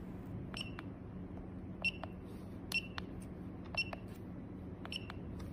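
Key presses on a handheld ultrasonic flowmeter's keypad: five presses about a second apart, each a small click with a short high beep from the meter, as a value is keyed in.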